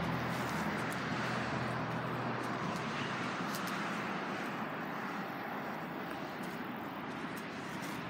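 Steady outdoor background noise: an even hiss, with a low hum underneath that fades out within the first couple of seconds.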